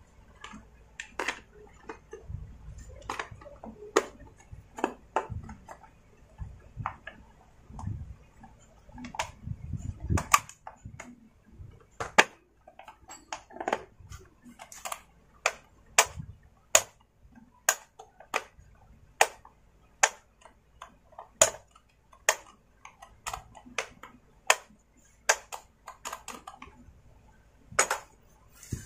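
Sharp plastic clicks and knocks as the top cover of a Stihl MS250 chainsaw is fitted and pressed into place by hand, about one to two clicks a second, with a few dull thumps of handling in the first half.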